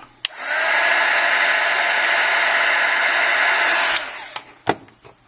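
A handheld hot-air blower runs steadily for about three and a half seconds, heating the phone's part to soften its adhesive so it stays down, then cuts off abruptly. A sharp click follows near the end.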